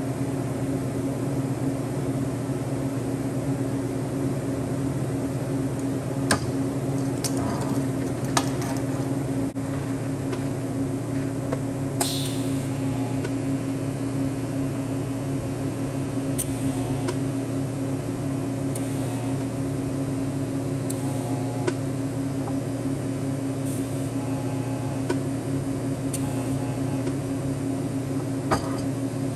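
A steady mechanical hum that holds one level throughout, with a dozen or so sharp clicks and knocks scattered through it.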